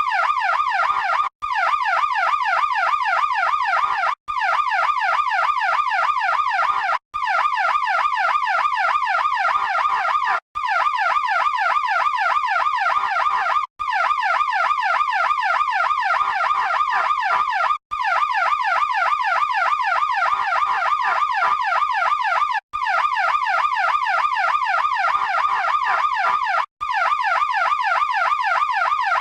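E2QB electronic siren sounding a fast cycling tone, its pitch sweeping rapidly several times a second. It cuts out briefly and restarts every three to four seconds.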